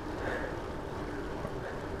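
Wind rushing over the microphone and tyre rumble on asphalt from a Rad Rover fat-tyre electric bike rolling along, a steady noise with no breaks.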